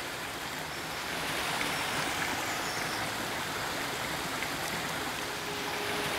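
Steady rushing of a stream's running water. A low held music note comes in near the end.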